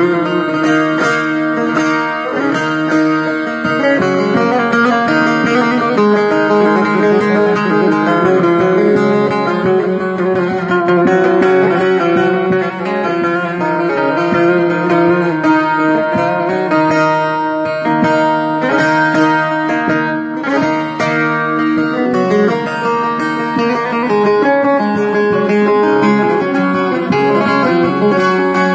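Bağlama (Turkish long-necked saz) playing a continuous instrumental türkü passage of quick plucked notes, amplified.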